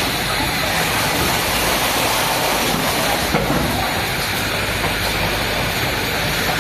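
Steady, even din of production-line machinery running, with a low hum underneath.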